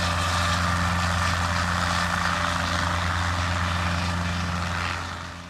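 Guimbal Cabri G2 helicopter's piston engine and rotors, heard at a distance as it flies away: a steady low hum over a wide hiss. It fades out near the end.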